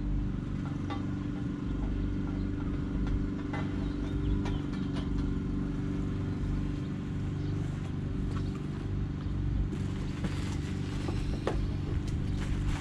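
A steady low mechanical hum made of several even tones, like an engine running at a constant speed, with scattered light clicks that come more often near the end.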